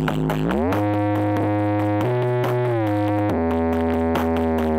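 Loud electronic music played through a large outdoor sound-system rig. Long held notes slide up about half a second in and down again near the middle, over a steady deep bass.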